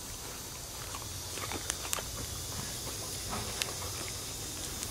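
Siberian husky licking and mouthing at a toothpaste-covered toothbrush: scattered short mouth clicks, a few close together about a second and a half in and one more near the end, over a steady low outdoor hiss.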